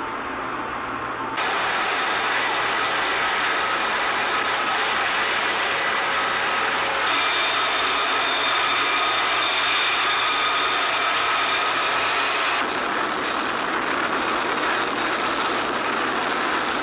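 Steady machine-like rushing noise with several high, steady whining tones, its character shifting abruptly three times.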